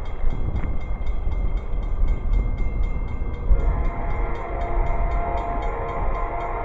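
Approaching train rumbling, with a faint distant horn-like tone coming in about halfway through.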